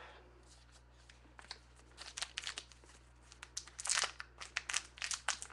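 Wrapper of a 2012 Topps Gypsy Queen baseball card pack being handled and torn open: faint crinkling and small ticks that start about two seconds in and grow busier toward the end.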